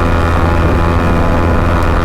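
Bajaj Pulsar NS200's single-cylinder engine through an aftermarket full-system exhaust, held at high revs at a steady pitch while the bike runs toward its top speed on a highway.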